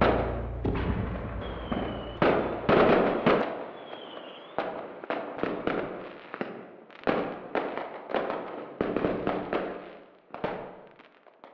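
Fireworks going off overhead: a dense series of sharp bangs and crackling bursts, with two short whistles in the first few seconds. The bangs thin out and fade near the end.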